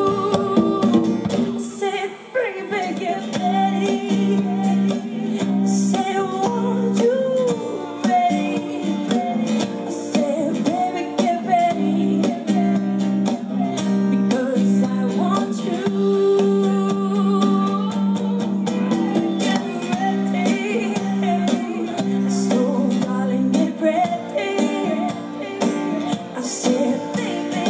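Live female vocal sung over a strummed acoustic guitar, with light percussion hits from a drum kit behind.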